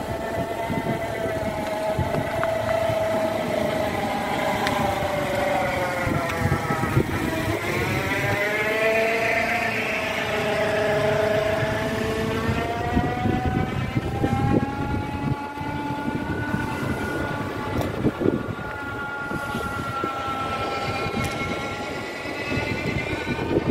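Motor engine running, its pitch slowly falling and rising several times as the revs change.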